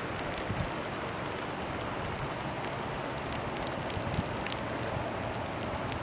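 Steady, even outdoor hiss of background noise, with a few faint ticks scattered through it.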